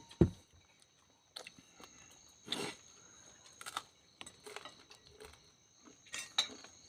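A person chewing and eating, with scattered short clicks and knocks, the loudest a sharp knock just after the start. Under it runs a steady high trill of crickets.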